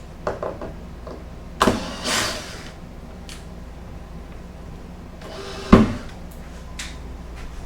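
Cordless drill run in short bursts, backing a screw out of the wood, with a sharp knock a little before six seconds in.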